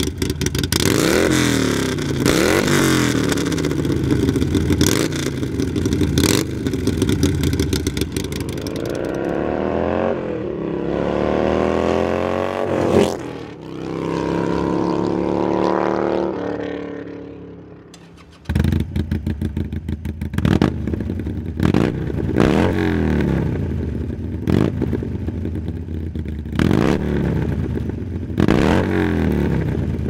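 Harley-Davidson Sportster's air-cooled V-twin through an Arlen Ness MagnaFlow F-Bomb 2-into-1 exhaust. It is revved in repeated throttle blips at a standstill, then accelerates past up through the gears, and the sound falls away into the distance. About two-thirds of the way through the sound cuts to the same kind of engine through a Two Brothers Comp-S 2-into-1 exhaust, again revved in sharp blips.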